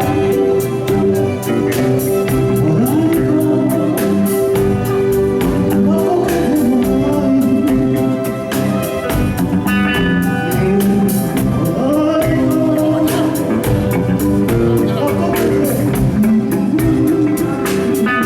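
Live band playing a song at a sound check: a singer over guitar and a steady beat.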